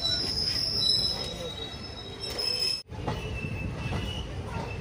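Passenger train's steel wheels squealing on the rails in several steady high tones over the low rumble of the moving train. Nearly three seconds in, the sound cuts out for an instant and returns with the squeal fainter.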